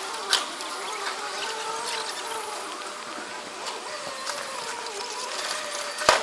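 Forklift running with a wavering whine from its engine and hydraulics as it pushes and lifts wrecked yacht debris. A sharp knock comes just after the start and a louder bang of the wreckage at the very end.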